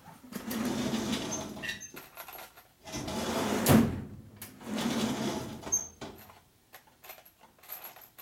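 Someone rummaging off camera: three rustling, sliding passes with a sharp knock in the middle one, then a few light clicks.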